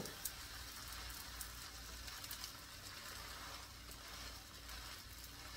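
Grilled cheese sandwich, its bread coated in mayo, frying in a pan: a faint, steady sizzle with scattered light crackles.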